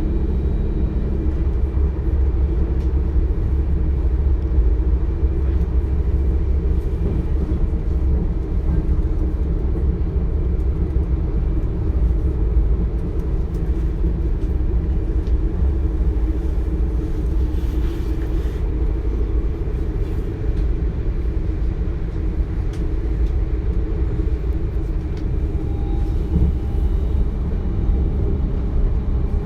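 DB Class 425 electric multiple unit running, heard from inside: a steady, loud low rumble of wheels on the track and running gear, with faint steady tones above it.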